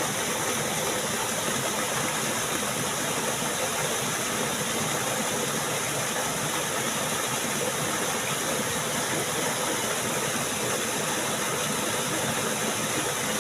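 Steady rushing of flowing stream water, an even unbroken hiss.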